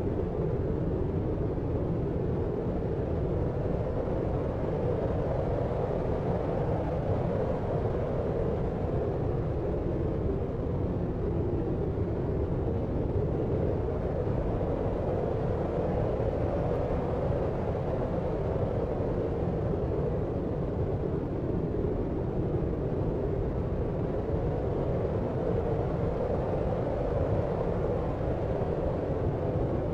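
Steady deep rumbling noise, low and even with no separate events, like a distant city's traffic hum heard through a window.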